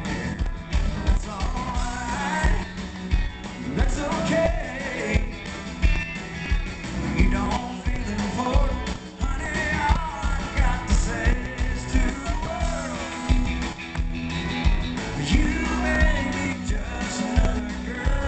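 Live country-rock band playing through the arena PA, heard from the crowd: drums keeping a steady beat under electric guitar, bass and keyboards, with a man singing lead.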